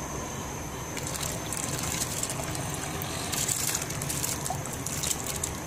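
Red and yellow lentils being tipped from a bowl into a pot of boiling water, splashing and crackling from about a second in and loudest a little past the middle, over the steady noise of the boil.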